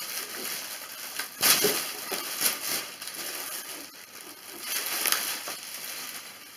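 Clear plastic wrapping crinkling and crackling as it is pulled off a bag, in several bursts, the loudest about one and a half seconds in.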